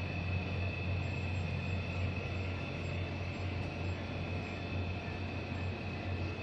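Steady drone heard from a tanker's bridge underway: a constant low hum from the ship's engine and machinery with an even hiss and a steady high whine. A faint high-pitched tone pulses about twice a second through the middle.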